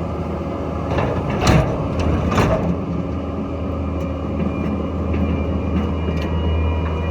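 Skid steer engine running steadily, with two sharp knocks about a second and a half and two and a half seconds in.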